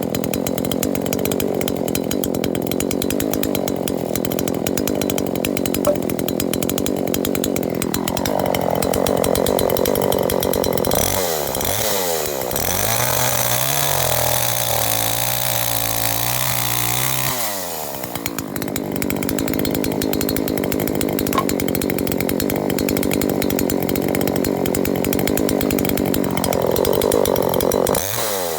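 TCS42X-16SN 39.6 cc two-stroke gasoline chainsaw running at high revs. It is throttled down to a slow idle about twelve seconds in, then revved back up about five seconds later, with a rev swell near the end.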